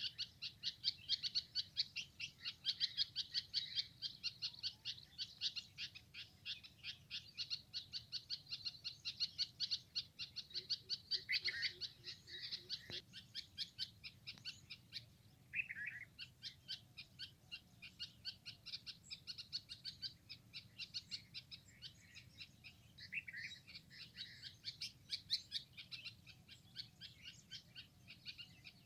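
Small birds chirping continuously, a rapid run of short, high chirps several a second, with a few lower, longer calls mixed in through the middle and later on.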